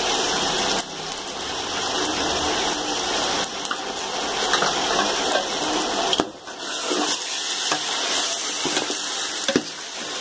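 Chicken, onions and spice powders sizzling steadily in a steel pot as they are stirred with a perforated metal spatula, with a few scrapes and clicks of the spatula on the pot in the second half.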